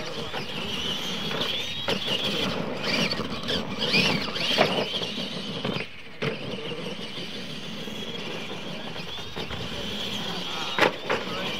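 Electric Clod Buster-style RC monster trucks racing on dirt: a steady high motor whine over tyre and drivetrain noise. A few sharp knocks come through, the loudest about four and a half seconds in and again near the end.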